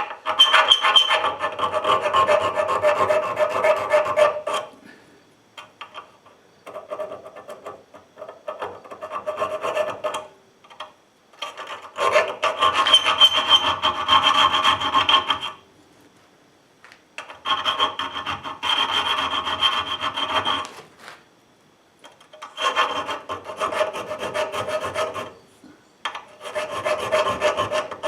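A hand file rasping over forged wrought iron in bouts of quick back-and-forth strokes, about six bouts with short pauses between them. The iron rings with a faint steady note under the strokes.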